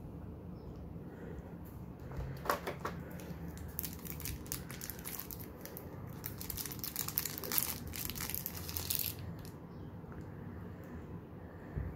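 Small clear plastic bag crinkling as a figure part is unwrapped by hand, a run of dense crackles from about two seconds in until about nine seconds in.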